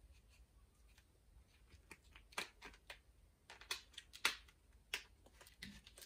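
Adhesive tape being pulled and wrapped to fix a hairbrush to a hand: a run of faint, short rips and crinkles, most of them in the second half.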